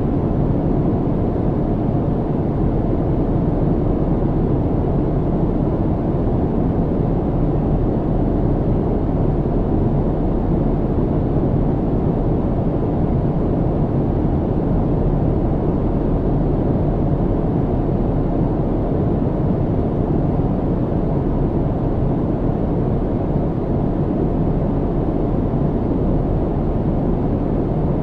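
Airplane cabin noise in flight: a steady, unchanging low rumble with little high end.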